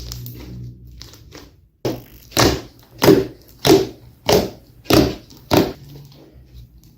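Slime being pressed or squished in a steady rhythm: about six sharp squelching strokes, roughly two every second, starting a couple of seconds in.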